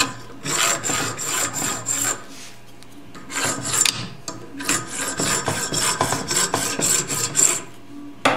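Hand file rasping in quick strokes across the crimped metal end of a Gaggia Classic steam valve, filing off the factory crimp to free the spindle. There is a short pause about two seconds in, and a single sharp knock near the end.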